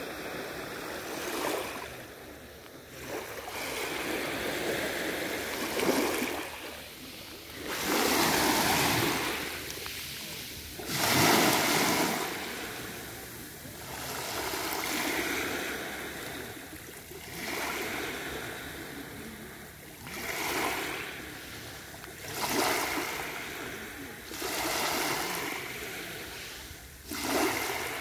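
Small sea waves lapping on a crushed-shell beach, each one washing in with a rush and drawing back, about every two to three seconds.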